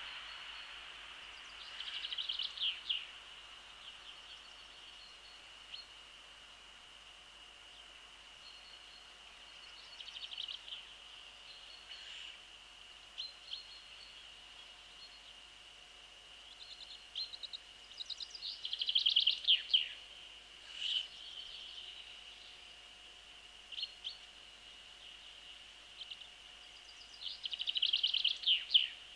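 A songbird singing a short phrase of quick falling notes four times, about every eight to nine seconds, over a faint steady high whine.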